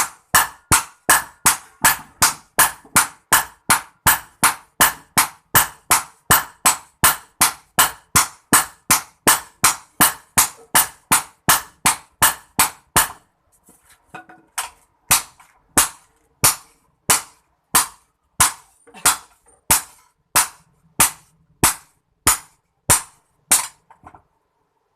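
Hammer blows on a hoe blade being forged on an anvil, sharp ringing strikes at about three a second. After a short pause about halfway through, the hammering resumes more slowly at about two strikes a second and stops shortly before the end.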